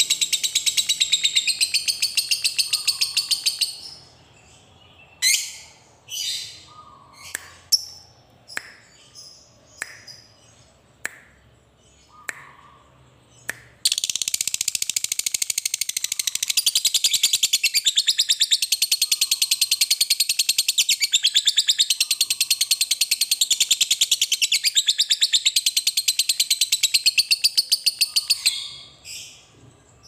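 Lovebird singing its long 'ngekek': a very fast, high chattering trill. About four seconds in it breaks off into a string of single sharp chirps. It then takes up the trill again for about fifteen seconds without a break, stopping near the end.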